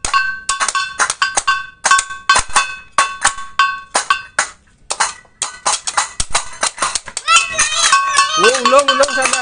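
Metal percussion struck rapidly in an uneven rhythm: sharp clashing hits with a ringing two-note metallic tone, like the gamelan that goes with a barong ngelawang. A child's voice comes in near the end.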